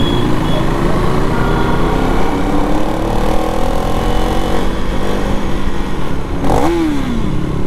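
Motorcycle engine running on the move, its pitch climbing steadily for a few seconds as it accelerates, over constant road and wind noise. Near the end a brief tone slides down in pitch.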